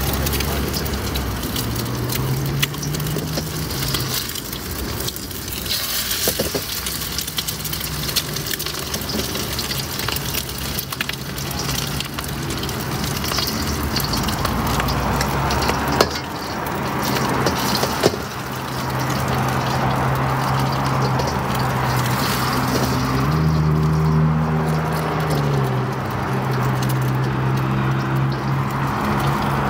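Food sizzling on a hot street-stall pan, a steady hiss under a low hum that steps up and down in pitch a few times. Two sharp knocks come about two seconds apart just past halfway.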